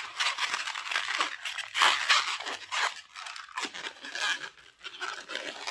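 Latex modelling balloon being handled and twisted by hand, the rubber rubbing and creaking in irregular scratchy bursts.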